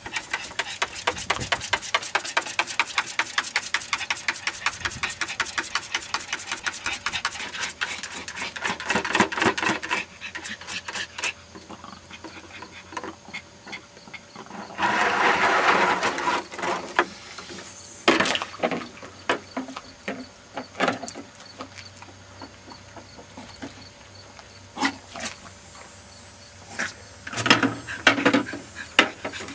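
Yorkshire terrier splashing in a plastic bucket of water: about ten seconds of fast, even splashing strokes, then a louder rush of water a little after the middle. Near the end come knocks and scrapes of the plastic bucket being shoved over concrete.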